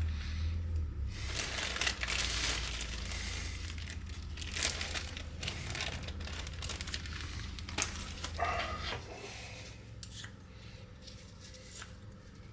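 Packaging crinkling and rustling in irregular bursts as new replacement bearings are unwrapped by hand.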